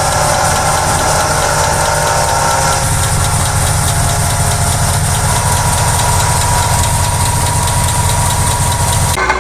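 Car engine running, with a steady whine from a damaged water pump bearing, a fault that often follows coolant leaking past the pump's worn internal seals. The sound changes abruptly just before the end.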